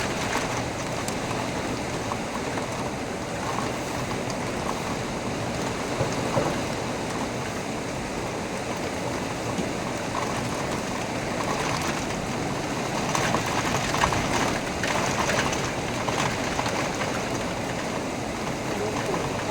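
Heavy rain pouring steadily, a dense even hiss that briefly swells a little after the middle.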